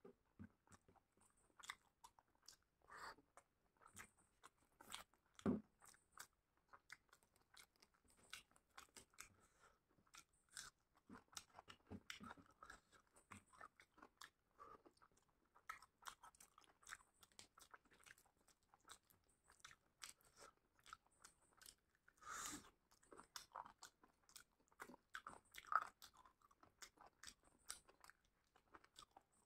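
Close-up mouth sounds of a person eating chicken and rice by hand: soft, irregular chewing with wet clicks and crunches, and a few louder crunches scattered through, including gnawing on a chicken leg bone near the end.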